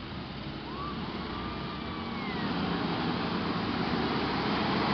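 Off-road 4x4 engines running hard under load while towing a vehicle stuck in mud, growing steadily louder.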